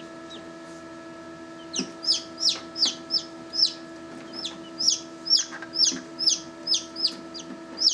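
Newly hatched chicks peeping loudly and over and over, short high calls that fall in pitch, about two or three a second, beginning a couple of seconds in. A steady hum runs underneath.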